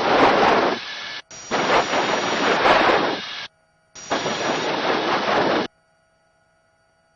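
Helicopter headset and radio audio: three bursts of rushing, static-like noise, each cutting in and out abruptly as the microphone or radio channel keys open and shut.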